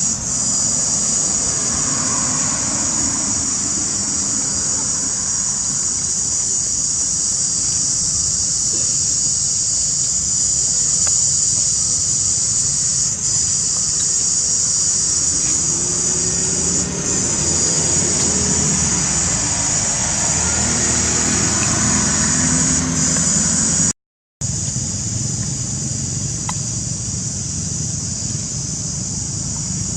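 Steady high-pitched buzzing of an insect chorus. Under it, a motor vehicle's engine rises and falls as it passes, from about halfway through. The sound drops out for a moment near the end.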